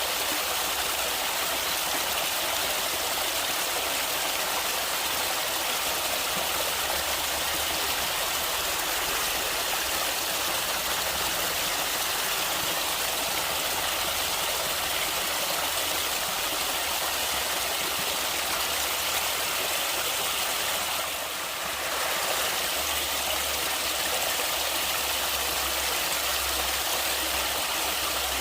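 Water of a flowing stream rushing and splashing steadily, with a brief slight dip in level about three-quarters of the way through.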